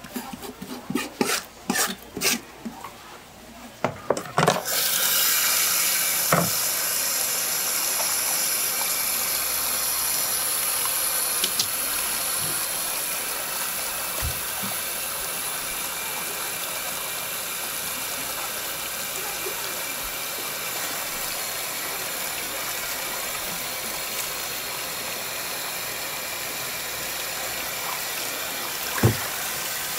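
Tap water pouring into a plastic basin as squid bodies are swished and rinsed by hand, a steady rush of running water that starts suddenly about four seconds in. Before it come a few sharp knocks, and a few small clicks sound through the water later on.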